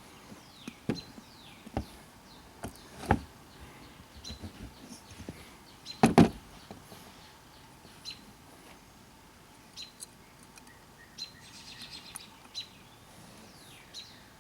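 Scattered knocks and clicks of hard objects being handled, the loudest a clatter about six seconds in, with birds chirping repeatedly in the background.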